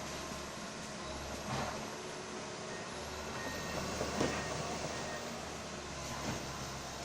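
Komatsu hydraulic excavator's diesel engine running steadily, with a few short sharp knocks or cracks about a second and a half in, near the middle and toward the end.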